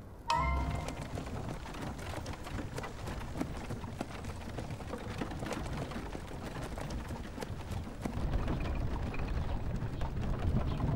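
Horse-drawn wooden carriage travelling over a rough dirt road: a steady rattle and creak of the cart with many small knocks, and the horse's hooves clopping.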